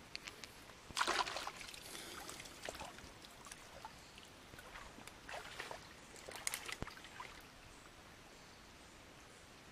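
Water splashing and dripping in a few short bursts as hands rinse and work a crab in a shallow stream, the loudest splash about a second in and smaller ones around five and six and a half seconds.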